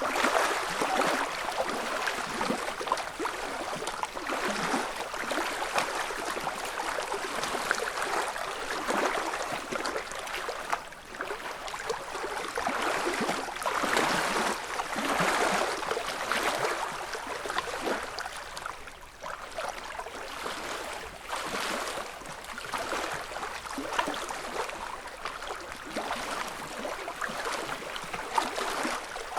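Small ripples lapping and splashing at a lake shore: a continuous wash of little splashes that swells and eases every few seconds.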